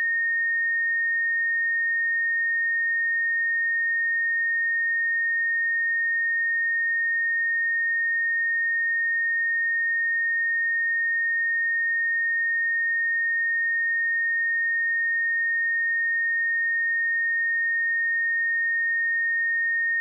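Pure 1844 Hz sine-wave test tone, a single steady high-pitched tone held at a constant level.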